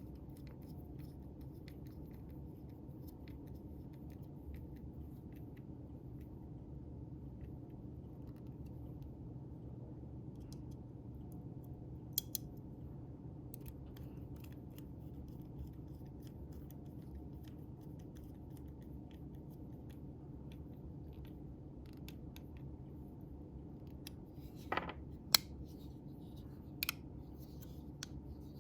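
Small metallic clicks and taps of folding-knife parts being handled and fitted back together during reassembly, over a steady low background noise; a few sharper clicks come about 12 seconds in and again near the end.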